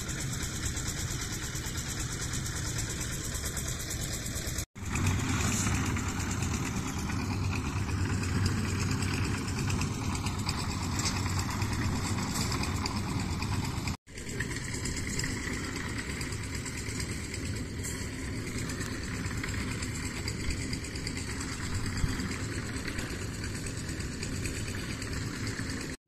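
A machine engine running steadily at a construction site, with noise heavy in the low end. The sound cuts out for an instant twice, about five and fourteen seconds in.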